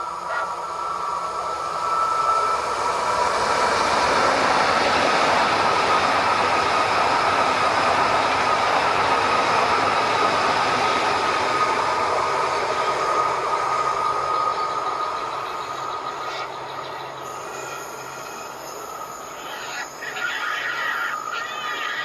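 Electric train passing at speed on the line: a rushing rail noise swells over a couple of seconds, holds for about ten seconds, then fades away.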